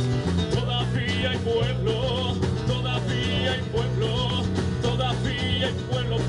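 Live worship band playing a song: drum kit and guitar over steady low bass notes that change about once a second, with a wavering melody line above.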